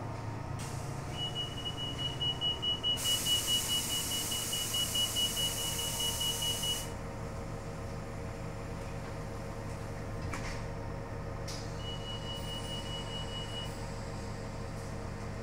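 A high warning tone sounds on board a New Flyer DE60LFR articulated hybrid bus, joined by a loud hiss of released air for about four seconds. The tone stops and then sounds again briefly about twelve seconds in, over the bus's steady drivetrain hum.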